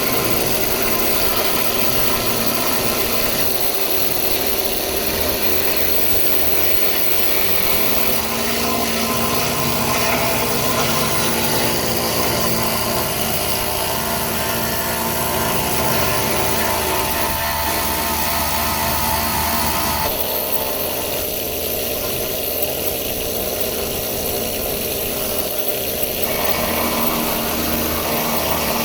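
Pneumatic needle guns hammering old paint off metal: a loud, continuous, dense racket. The mix changes about twenty seconds in, then changes back a few seconds later.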